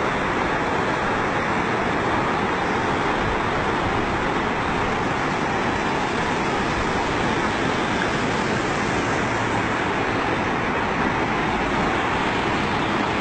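Muddy floodwater rushing in a torrent down a channel: a steady, unbroken rushing noise.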